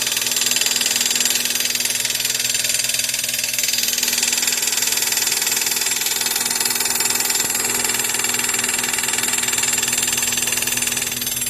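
Chevrolet Corsa Classic engine running with a steady, loud abnormal noise from the engine bay; the alternator is not charging.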